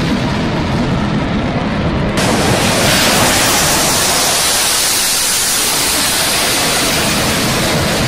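Jet engines of a carrier-based MiG-29-type fighter running at high power: a loud, steady rushing noise. It changes abruptly about two seconds in and grows louder and brighter from about three seconds.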